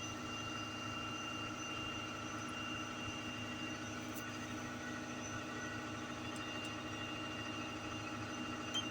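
Doosan excavator running steadily: an even engine hum with a constant high whine over it, unchanging throughout.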